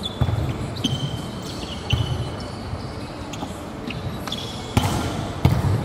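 A volleyball being played: about five sharp hits of the ball on players' hands and arms, the loudest two near the end, ringing in the big hall's echo. Short high squeaks of sneakers on the court floor come between the hits.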